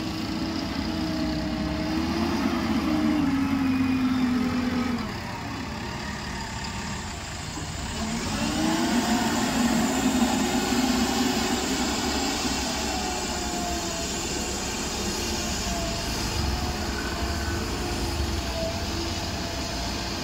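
JCB 3DX backhoe loader's diesel engine running under load, the revs rising about two seconds in, falling back near five seconds, then climbing again around eight seconds and holding steady.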